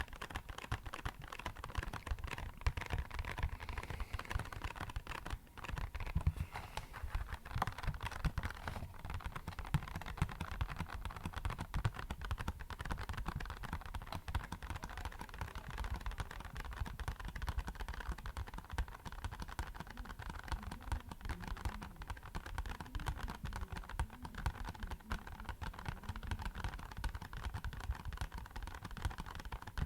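Fast, dense tapping on an empty box, many light taps running together into a steady patter that sounds like rainfall.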